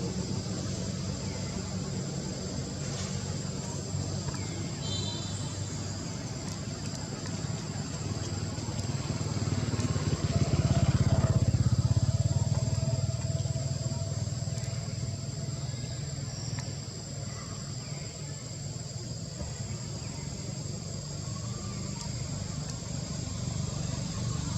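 Low engine hum from a motor vehicle, growing louder about ten seconds in and then fading again.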